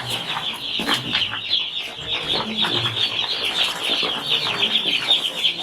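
A crowd of young chicks peeping continuously, many short high cheeps overlapping in a dense chorus.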